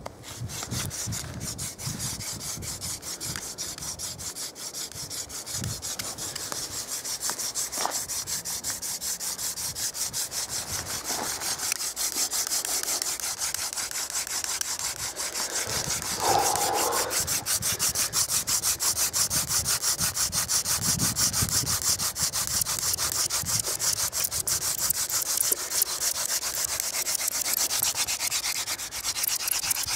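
Hand drill friction fire: a wooden spindle spun back and forth between the palms, its tip grinding in a hearth board with a rapid, continuous rasping that grows louder about halfway through, as it works toward an ember.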